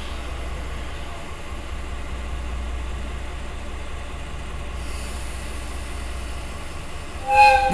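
DE10 diesel locomotive idling with a steady low rumble, then a short, loud blast of its horn near the end, the signal given just before the train moves off.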